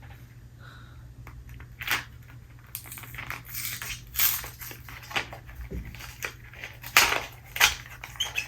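Irregular crackling and crunching bursts of candy packaging and small candies being handled, the loudest about two-thirds of the way through.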